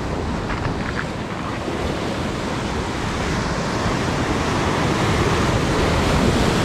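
Ocean surf breaking and washing over a rock ledge, building louder toward the end as a bigger wave crashes, with wind buffeting the microphone.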